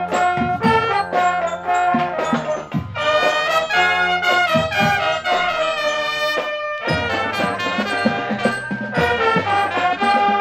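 Marching drum corps playing a tune: brass melody over steady drum beats.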